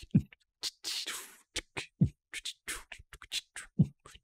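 Beatbox-style rhythm track: a low, falling kick thump about every two seconds, with short hissy and clicky hits and scratch-like sounds between them.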